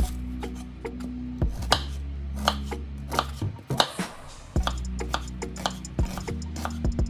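Kitchen knife slicing and dicing a peeled onion on a cutting board: a string of irregular, sharp knife taps against the board.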